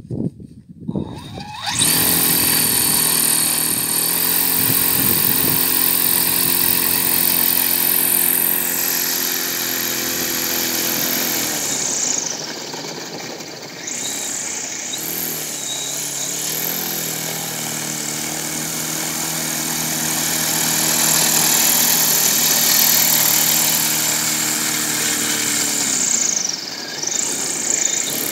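Electric motor driving the propeller of a homemade propeller sled: a loud, steady propeller hum with a hiss of air. It starts about two seconds in, sags in pitch for a few seconds near the middle before picking up again, and winds down in pitch near the end.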